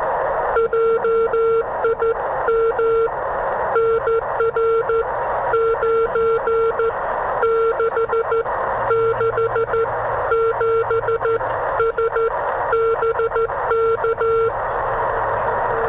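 Morse code (CW) from a YouKits HB-1B QRP CW transceiver: a mid-pitched tone keyed on and off in dots and dashes over a steady band of receiver hiss. It spells out a contact exchange ending in BK, handing the turn to the other station. The keying stops about a second before the end, leaving only the hiss.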